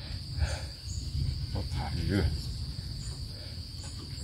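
Steady high-pitched insect chorus, a constant drone of crickets or cicadas, with a low rumble underneath.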